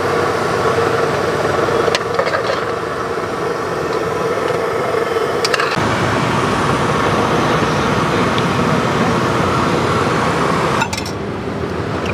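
Steady traffic and street noise around a roadside food cart, with a few light clinks of metal utensils on plates and pots.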